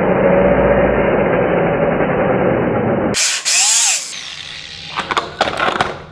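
An angle grinder cuts into the top of an Acer X110P projector's housing, throwing sparks, with a loud steady grinding for about three seconds. The disc is then lifted off, and a few knocks and rattles follow as the projector is handled and tipped onto its side.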